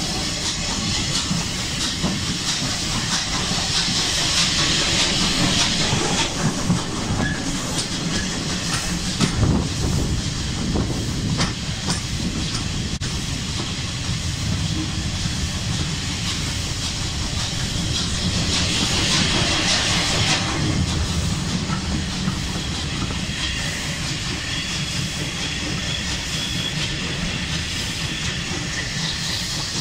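Bulleid West Country class steam locomotive 34092 City of Wells hauling a train, heard from a coach window: a steady hiss of exhaust and steam over the rumble of the coaches, with wheels clicking over rail joints now and then. The hiss swells twice, a few seconds in and again about two-thirds of the way through.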